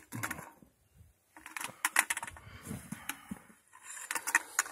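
A hiker's footsteps on a rocky trail: groups of scuffs and clicks as boots step down over rock and grit, with some light clinking among them.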